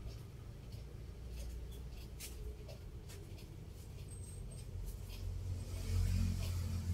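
Handling noise from a handheld phone camera as it pans: a low rumble with faint scattered clicks and rustles, swelling louder about five to six seconds in.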